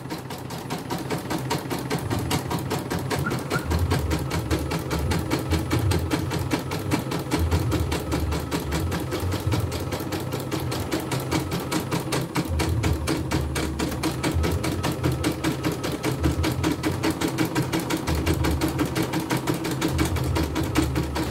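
Portable embroidery machine stitching steadily at speed, its needle going up and down with a rapid, even ticking clatter. The machine has just been oiled, which has changed how it sounds.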